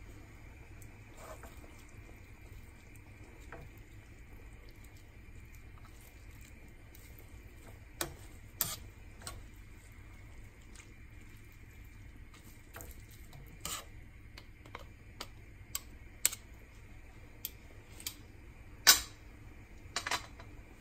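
Wooden spoon scraping and knocking against a nonstick frying pan as a block of rice stick noodles is broken up and tossed with the vegetables and chicken. It gives a scattering of sharp clicks and knocks, the loudest near the end, over a low steady hum.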